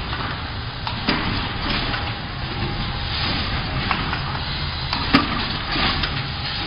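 Automatic phone-box making machine running with a steady hum, with irregular sharp clacks and knocks as finished paperboard phone boxes drop down its chute onto the pile in the carton; the loudest knock comes about five seconds in.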